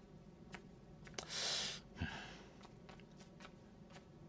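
A sharp click, then about half a second of loud hiss like a forceful breath or whoosh, followed by a short low grunt that drops in pitch; a few faint ticks after.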